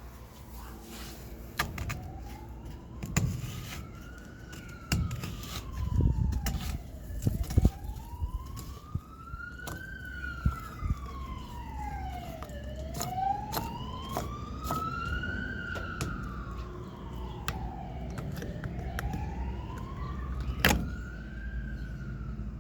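Siren wailing, its pitch rising and falling slowly about every six seconds, with scattered sharp knocks and a low rumble underneath.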